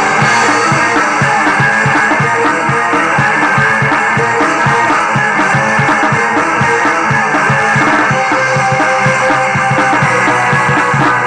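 Loud rock music with guitar and a steady, driving beat, which cuts off suddenly at the end.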